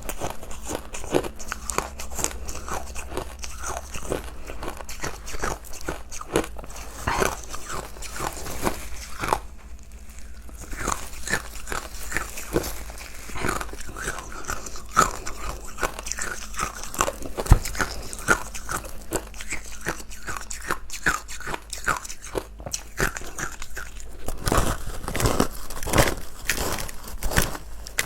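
Close-up crunching and chewing of powdery, matcha-dusted ice: a dense run of crisp crunches and bites, with a short pause about ten seconds in and louder crunches near the end.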